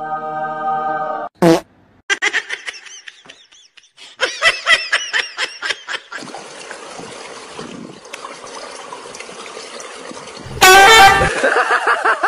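A dog vocalising while being fed biscuits: a long held whine, then quick series of high, wavering squeals, and a loud outburst near the end.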